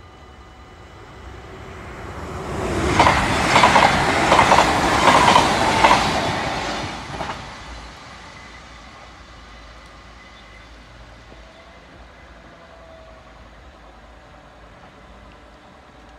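Double-deck electric passenger train passing the crossing close by. It swells from about two seconds in, gives a loud run of wheel clacks over the rail joints for about four seconds, then fades quickly as it moves away.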